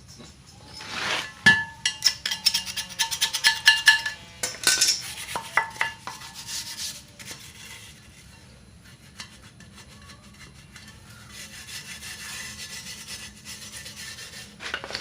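Scraping and rubbing on a metal motorcycle wheel rim as paint softened by remover is stripped off. A quick run of scrapes and sharp metallic clicks fills the first seven seconds, then quieter, steadier rubbing follows near the end.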